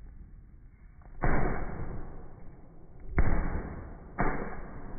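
Fireworks bursting overhead, three bangs played back slowed down in slow motion: one about a second in, one about three seconds in, and one about four seconds in. Each bang trails off slowly.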